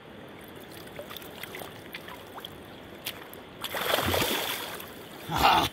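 Steady river flow, then a steelhead splashing hard in shallow water about four seconds in as it is released from the angler's hands, lasting about a second. A short, louder burst follows near the end.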